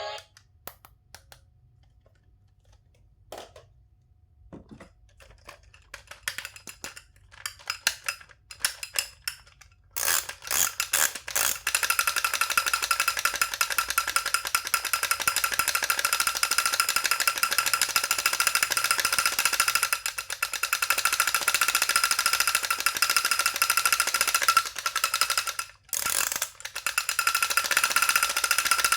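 Scattered clicks and light handling sounds, then from about ten seconds a loud, steady, fast rattling buzz with a high tone, typical of a battery-powered toy running, breaking off briefly twice near the end.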